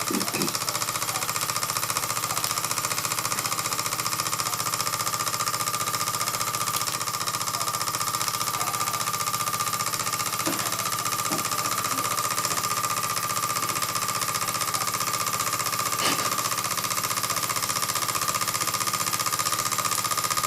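1930s Bing toy upright steam engine running steadily at speed, a fast, even mechanical beat with a steady high tone alongside.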